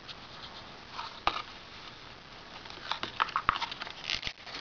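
Leather case handled close up: scattered light clicks and rubbing, a few about a second in and a denser run around three to four seconds.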